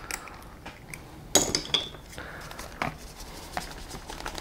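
Small hand scraper scratching dried mud out of an RC buggy's sway bar link: irregular scrapes and light clicks, the loudest about a second and a half in.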